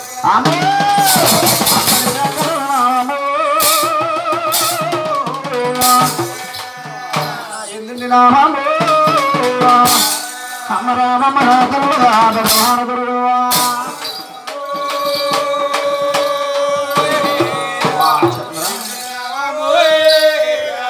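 A man sings a devotional folk song through a microphone and loudspeaker, the melody wavering and holding long notes, over the shaking of rattles and some drum strokes.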